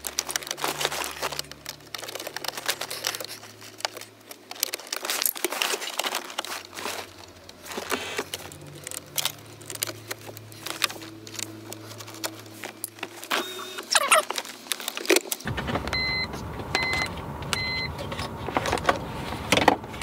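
Small clicks, knocks and rattles of hand work on a car's center console trim, with a screwdriver and plastic trim pieces being handled and keys jangling. Near the end come three short electronic beeps about a second apart.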